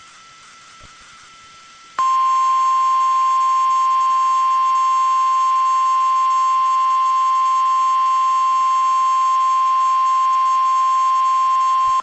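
NOAA Weather Radio 1050 Hz warning alarm tone: one loud, steady, unchanging tone that starts abruptly about two seconds in, holds for ten seconds and cuts off. It signals that an emergency alert message follows. Before it there is only faint radio hiss with a weak whine.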